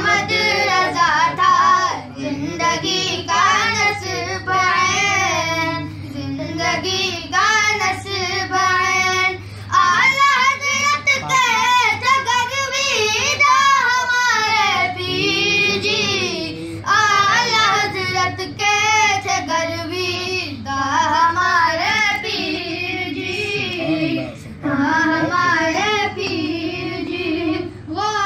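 A young voice singing an Urdu manqabat (devotional praise poem) without instruments, in long ornamented phrases with a wavering vibrato and short pauses for breath between them.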